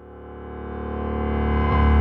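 Title-sequence music: sustained chords swelling steadily louder, with a rising shimmer on top.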